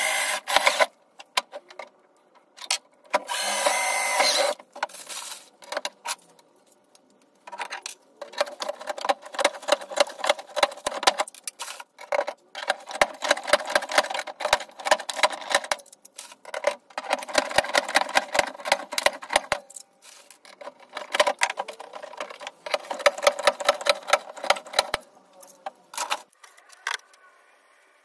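A workshop tool making rapid mechanical clicking, in several bursts of a few seconds each with short pauses between them.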